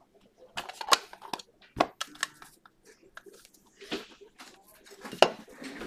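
Trading cards and foil pack wrappers being handled: a few sharp snaps and crinkly rustles about a second apart as cards are flipped through.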